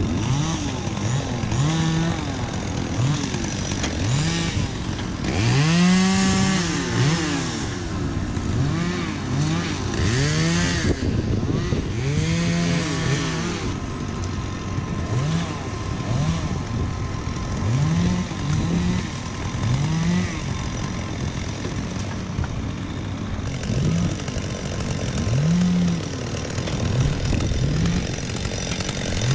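Chainsaw engine revved up and down in repeated short bursts, about one a second, its pitch climbing, holding briefly and dropping each time, while cutting brush. A tractor engine runs steadily underneath.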